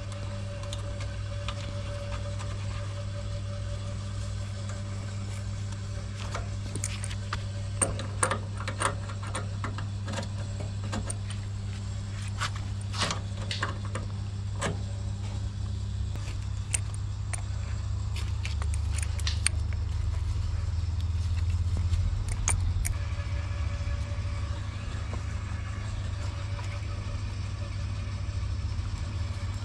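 Engine running steadily with a low hum, with scattered metallic clinks and taps between about a quarter and half of the way through. The hum swells a little, then shifts in note about three-quarters of the way through.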